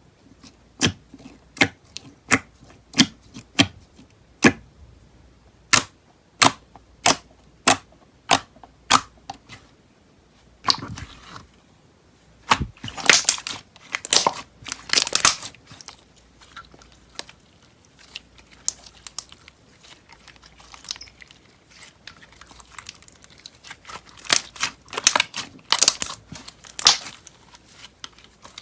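Slime being pressed and squeezed by hand: a run of sharp pops about every two-thirds of a second, then bursts of crackling and crunching.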